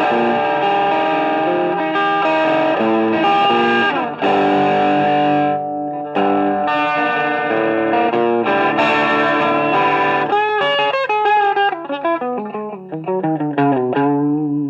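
Stratocaster electric guitar played through a DIY SD-1 overdrive pedal, giving a distorted tone: held chords for about ten seconds, then a line of single notes with wavering, bent pitch.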